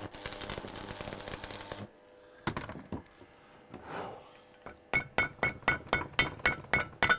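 A hammer striking steel in a quick, even rhythm, about three to four ringing blows a second, starting about five seconds in; it is typical of knocking slag off or shaping a fresh weld. It opens with about two seconds of steady hiss and a few scattered knocks.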